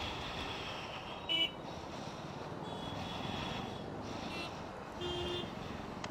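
Busy road traffic running past, with vehicle horns sounding several short times; the loudest toot comes about a second and a half in.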